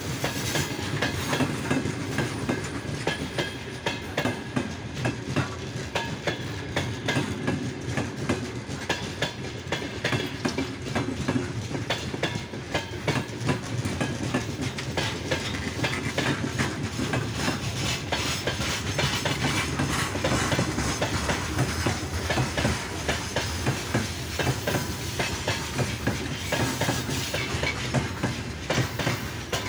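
Freight train wagons rolling past, their steel wheels clacking over the rail joints in a steady, rapid run of clicks over a low rumble.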